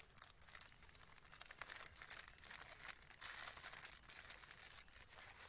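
Near silence with faint crinkling and rustling and a scattering of small clicks.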